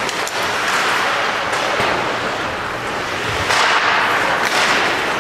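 Ice hockey play: skate blades scraping the ice in loud swells, with sharp clacks of sticks and puck.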